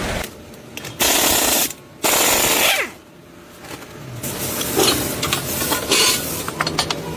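Two bursts from a compressed-air tool, each under a second, the second trailing off in a falling whine as the tool spins down; then scattered metal clicks and knocks of tool handling.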